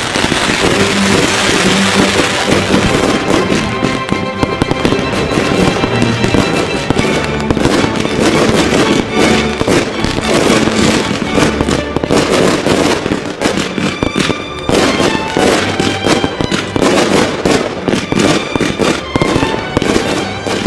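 Fireworks going off in quick succession: dense crackling and popping with heavier bangs mixed in, packed so closely that they run together, over music.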